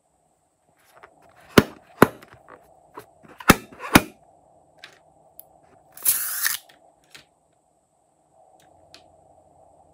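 Sharp clicks and snaps from hands handling a slime-filled rubber balloon: four loud ones within the first four seconds among smaller ones, then a short rough hissing burst about six seconds in.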